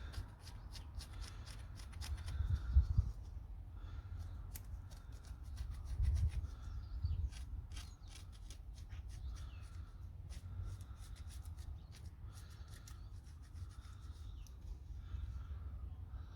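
Knife carving birch wood: short scraping cuts and clicks, irregular, as the blade shaves and hollows the cup.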